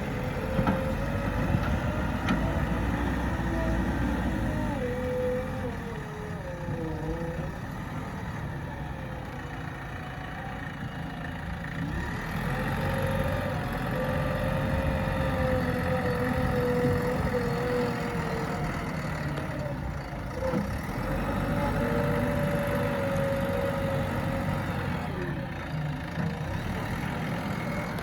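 JCB backhoe loader's engine running steadily under work, with a whine that rises and falls several times as it digs and loads.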